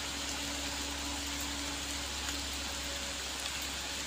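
Steady hiss of rain with the faint, steady drone of a distant diesel truck engine climbing a steep grade under heavy load.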